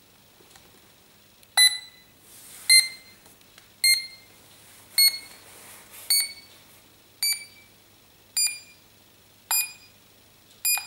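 LEGO Mindstorms EV3 brick's speaker beeping: nine short electronic beeps about a second apart, each starting with a click and each a little higher in pitch than the last.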